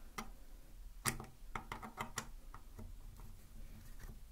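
Small sharp clicks and taps from handling during a battery change on a 3Dio Free Space binaural microphone: a string of separate clicks, the loudest about a second in, then a quick cluster of them.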